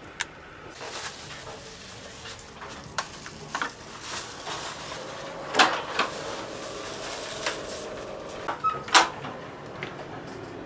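Doors and latches clacking inside a moving passenger train carriage: several sharp knocks and clicks, the loudest about halfway through and again near the end as the toilet door is opened, over the train's steady running noise.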